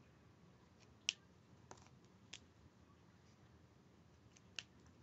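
Four sharp clicks from Copic markers being handled, the caps snapping, over near silence; the loudest click comes about a second in and the last near the end.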